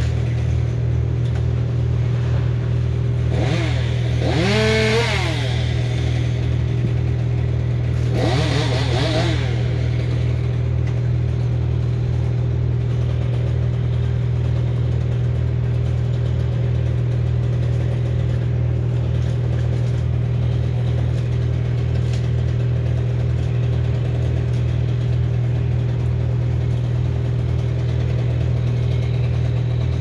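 An engine idling steadily close by, with a chainsaw revving up and dropping back twice, about four and about eight seconds in.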